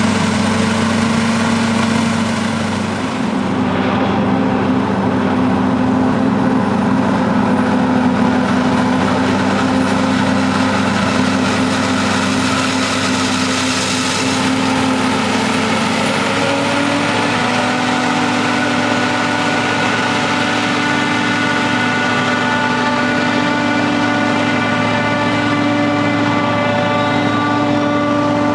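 Heavy farm diesel engines of silage harvesting machinery running steadily under load. About halfway through the engine note shifts and a second, higher pitch joins in.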